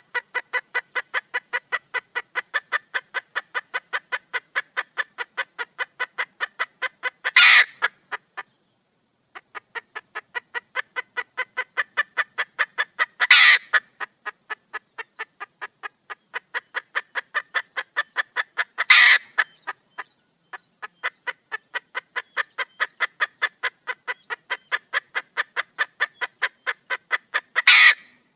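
Red junglefowl hen calling for a mate: a fast, even run of short clucks, about five a second, broken four times by a louder harsh squawk, with a brief pause after the first squawk.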